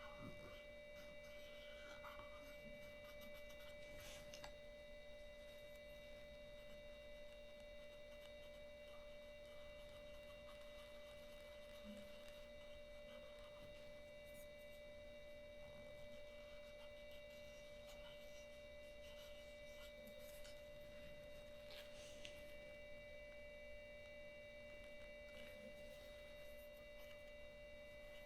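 Near silence with a faint steady electronic whine made of several high pure tones, broken by a couple of faint clicks.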